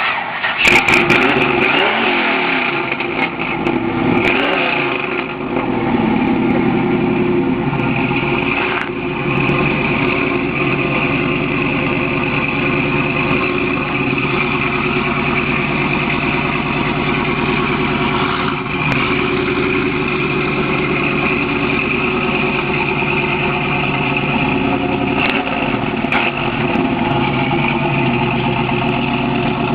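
Pontiac Trans Am's V8 starting up through its exhaust, revved a few times in the first few seconds, then idling steadily with a few short blips later on.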